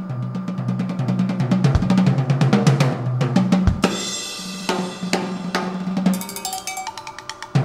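Stepper motors of an 80-watt Orion Motor Tech CO2 laser cutter moving the head in quick short strokes: a fast run of clicks over a low hum that jumps back and forth between two pitches, with a couple of dull thumps.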